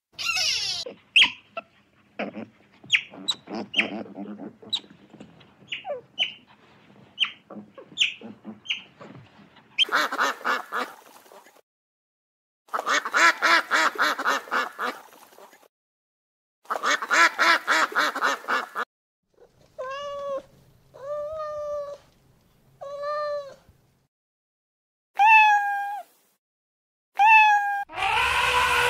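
A run of animal calls: rapid short chirps and clicks at first, then three long buzzing calls, then a series of short pitched calls that rise and fall.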